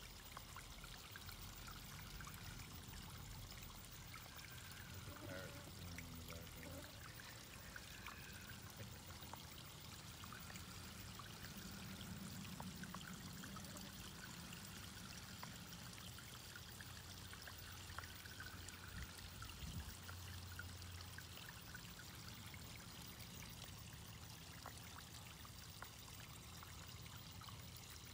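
Faint, steady trickle of running water in a garden pond.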